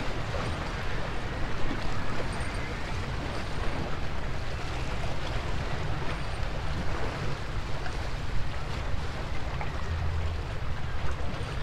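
Wind buffeting the microphone over small waves washing against the granite jetty rocks: a steady rush of noise with a low rumble.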